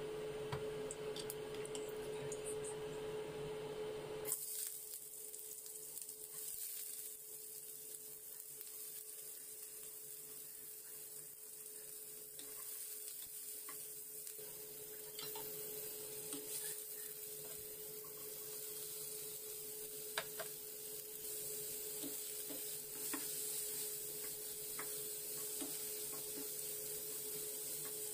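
Diced onion, carrot and barbecue pork sizzling in oil in a non-stick wok, starting about four seconds in, with a wooden spatula stirring and scraping and occasional clicks against the pan. A steady hum runs underneath.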